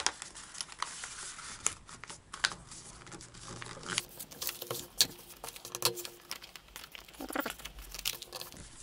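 A sheet of A4 paper being folded by hand: irregular rustling and crinkling with scattered short, sharp taps as the folds are creased flat.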